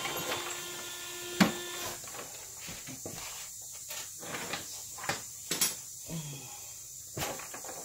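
Scattered clicks and clunks of hand tools on bolts, taking off the 13 mm bolts on a car's downpipe, with sharper knocks about a second and a half in, around five and a half seconds, and near the end. A steady low hum runs under the first two seconds.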